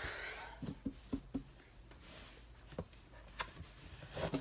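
A short rustle, then a scattering of light knocks and taps as a person moves about and handles things in a small room.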